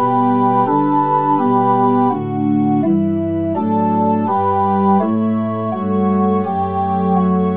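Pipe organ, synthetically registered on Montre 8' and Gedackt 4' stops, playing sustained chords in several voices that change in steps about every half second to a second over a moving bass line.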